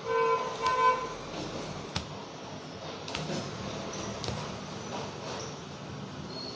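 A vehicle horn honks in several short toots through the first second, over steady street traffic noise. A few sharp clicks follow later.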